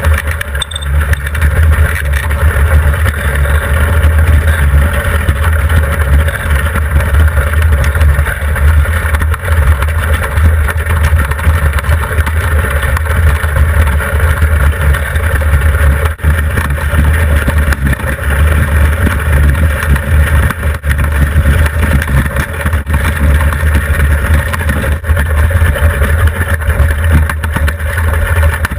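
Iceboat running fast over rough ice: a loud, steady rumble and hiss from the runners on the ice and the rushing wind, picked up by a camera fixed to the hull's bow.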